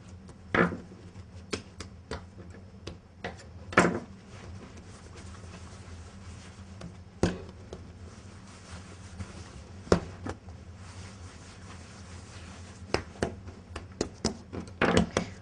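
Hands working bread dough on a wooden worktop: scattered soft thumps and knocks, with a cluster of lighter knocks near the end, over a low steady hum.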